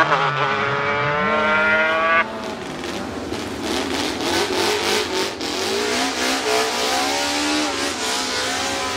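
Racing motorcycle engines accelerating hard, the pitch climbing through the gears, until a sudden cut about two seconds in. Then a classic racing motorcycle engine revs and blips at low speed, its pitch wavering up and down, with scattered crackles.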